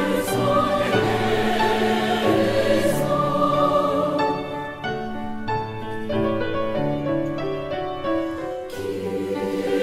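A choir singing sustained chords. The sound grows softer and thinner from about four seconds in, then swells again near the end.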